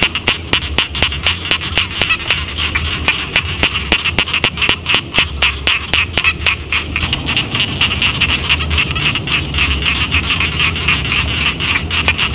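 Rice-paddy frogs calling in a dense chorus: many rapid croaks and clicks overlapping into a continuous din, with a steady low hum underneath.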